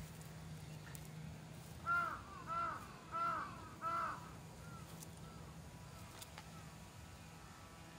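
A crow cawing four times in quick succession, short harsh caws, followed by a few fainter caws.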